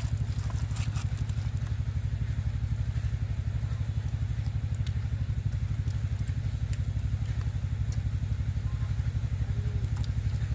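A small engine running steadily at idle, a low even pulsing with no change in speed, with light clicks of clam shells being picked from the pile and handled.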